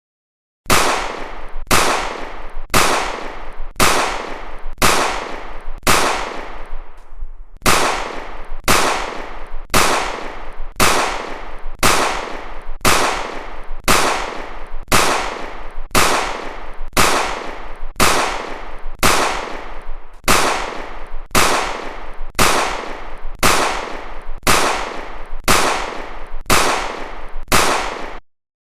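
Pistol gunshot sound effect repeating about once a second, each shot a sharp crack with a short fading tail. After the sixth shot there is a gap of almost two seconds, then the shots resume at the same pace.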